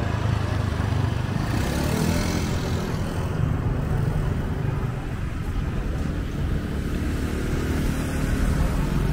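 Road traffic heard from a moving vehicle: a steady low rumble of engine and tyre noise.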